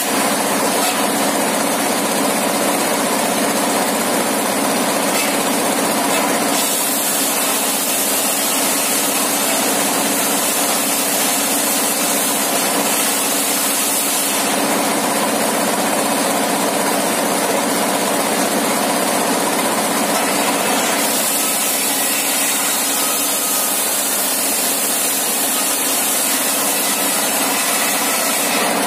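Engine-driven circular saw bench running steadily, with a constant engine hum and a high hiss that grows louder over stretches of several seconds as the large blade rips a plank into thin boards.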